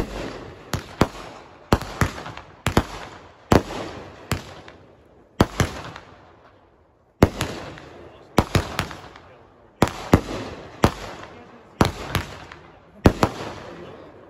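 Aerial fireworks shells bursting in quick succession: sharp bangs about one to two a second, each fading away over a second or so. There is a short lull about halfway through.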